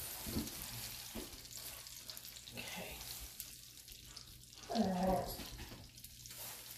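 Olive oil and melting butter sizzling and bubbling in a nonstick frying pan on medium-high heat, a steady hiss. A short hum of a voice is heard about five seconds in.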